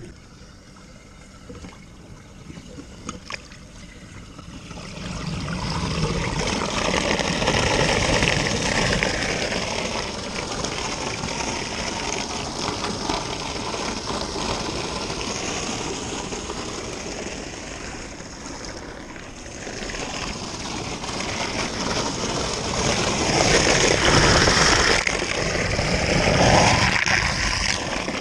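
Water rushing and gurgling down a flat-roof drain as the clog gives way, starting about five seconds in after a few clicks and staying loud, loudest near the end.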